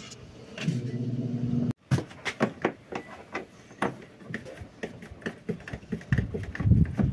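Refrigerator compressor and fan running with a steady low hum, which cuts off abruptly about two seconds in. Then come scattered light clicks and knocks. The fridge runs but barely cools, which the repairman puts down to low refrigerant gas.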